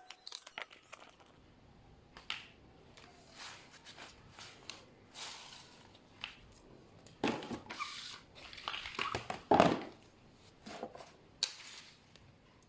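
Handling sounds: plastic packaging rustling and crinkling, with scattered clicks and knocks of containers being moved, busiest in the second half and with one louder knock about ten seconds in.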